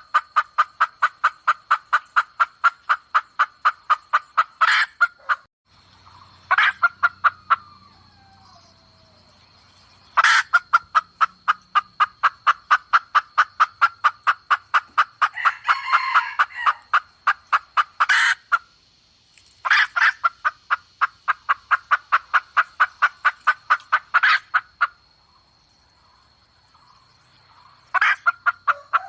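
Red junglefowl hen cackling: long runs of rapid, evenly spaced clucks, about five a second, in several bursts with short pauses between them. A faint steady high whine runs underneath.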